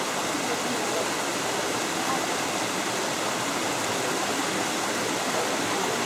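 Steady rush of water from a nearby waterfall and its stream.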